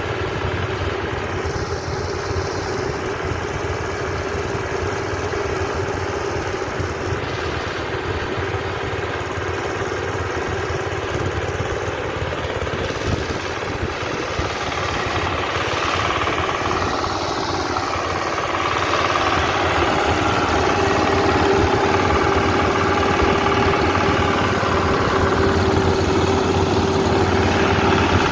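Engine of a rice-harvesting machine running steadily, growing a little louder about two-thirds of the way through, with a steady whine coming up over the engine note.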